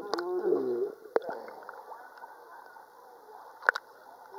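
Muffled underwater gurgling and bubbling, heard through a waterproof camera held just under the sea surface, strongest in the first second. Two sharp knocks come about a second in and near the end.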